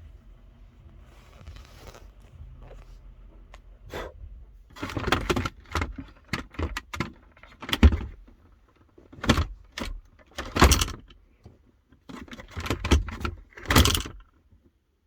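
Plastic interior trim of a 2007 Mazda 6's centre console clicking, rattling and clattering as it is handled and unclipped, in bursts with several sharp knocks.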